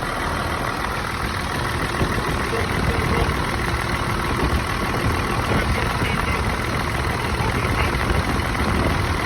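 Hino 268 box truck's diesel engine idling steadily, its new accessory belt turning a freshly installed AC compressor.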